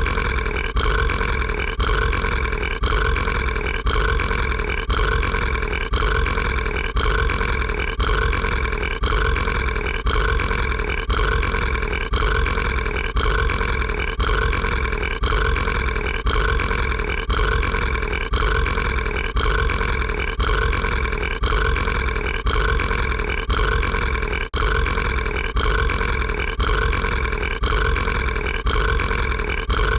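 Mike Wazowski's cartoon burp, a long pitched belch repeated in a tight loop, the same segment again and again about once a second.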